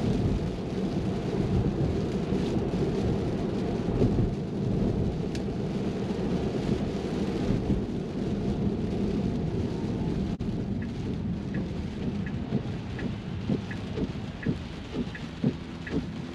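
Rain and wet-road tyre noise inside a Tesla's cabin: a dense low rumble with rain pattering on the glass roof. It eases somewhat after about ten seconds, when a light regular ticking, about two a second, joins in.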